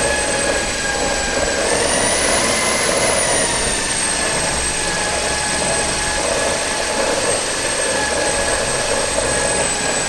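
Corded electric drill running steadily with a curd-churner whisk spinning inside a hollowed watermelon, churning the flesh into juice. Its motor whine holds a steady pitch, rising slightly about two seconds in and settling back.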